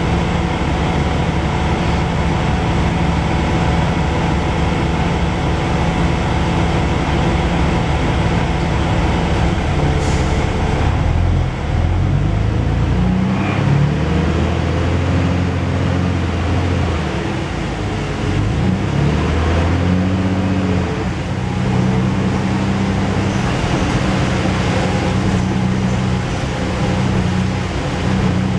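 Interior sound of a Dennis Dragon double-decker bus: its diesel engine and transmission running steadily, then revving up and dropping in pitch several times through the middle as it pulls away through the gears. A brief hiss about ten seconds in.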